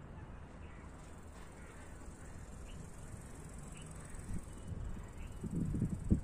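Insects buzzing steadily in a thin high band over a low rumble, with a few thumps near the end, the last one the loudest.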